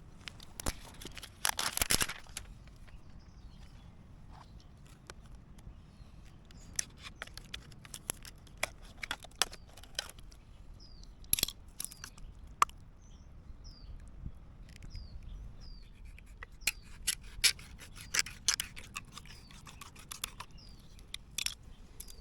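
Plastic jelly cups being handled, opened and eaten from: irregular clicks, crinkles and scrapes. A small bird chirps now and then in the background.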